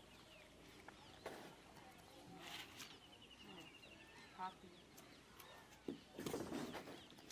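Faint bird chirps and a rapid repeated trill, with scattered light clicks and a short, louder rustling noise about six seconds in.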